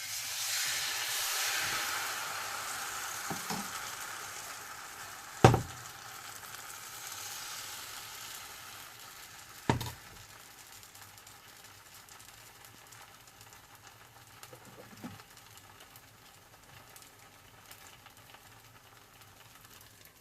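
Bánh xèo batter sizzling in a hot frying pan, loudest at first and slowly dying down. Two sharp knocks cut through it, about five and ten seconds in.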